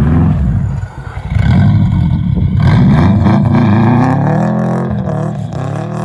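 1991 Subaru Legacy Turbo's turbocharged flat-four engine revving hard as the wheels spin in snow. The revs drop briefly about a second in, then climb again and hold high before falling away near the end.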